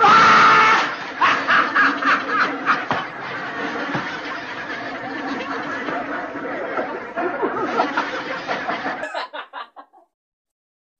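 A man laughing at length from an inserted TV comedy clip, loudest in the first second; the laughter cuts off about nine seconds in, followed by a few short bursts.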